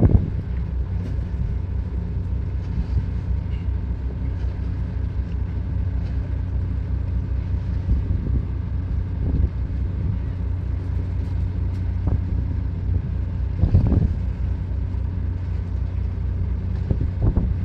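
Ship's machinery running with a steady low hum that has a fixed pitch and does not rise or fall. Two short thumps come late on.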